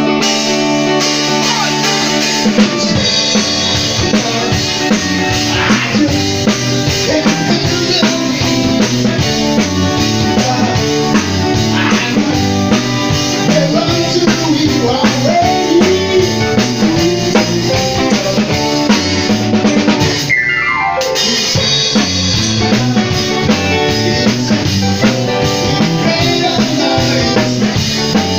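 Live band music: electric guitar played over a full drum kit with kick and snare, the drums coming in about two and a half seconds in. Around twenty seconds in, a single note slides sharply down in pitch.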